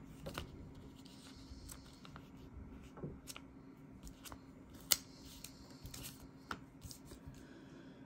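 Paper instruction and warranty leaflets being handled and leafed through: faint rustling with scattered light snaps and taps, the sharpest about five seconds in.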